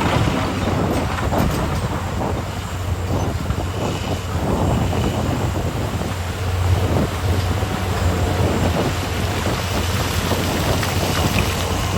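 Diesel engines of a large mining excavator and haul trucks running with a steady low drone, broken by scattered short knocks and rattles.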